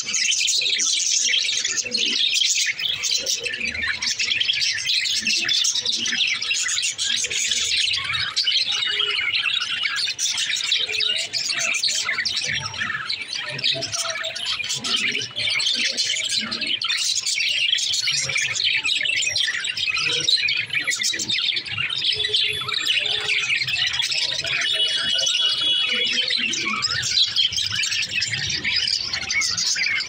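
A flock of budgerigars chattering continuously, with many high chirps and warbles overlapping.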